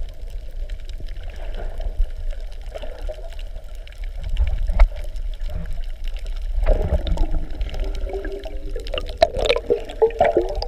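Water heard from underwater: a muffled low rush of water movement. In the last few seconds air bubbles gurgle and pop.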